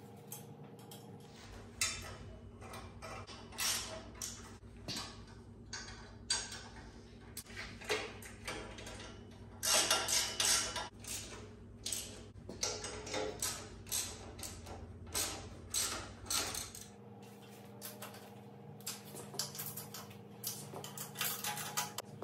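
Irregular metal clinks, knocks and scrapes of a VW Beetle exhaust muffler being handled and test-fitted onto the exhaust studs of an air-cooled 1600 dual-port engine, loudest about ten seconds in.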